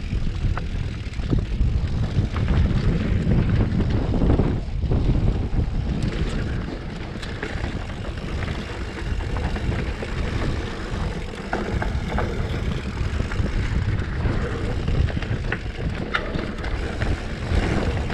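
Wind rushing over an action camera's microphone as a Specialized Stumpjumper mountain bike descends a dry dirt trail at speed, a steady low rumble with tyre noise on dirt and gravel. Scattered short rattles and knocks from the bike come through as it goes over bumps.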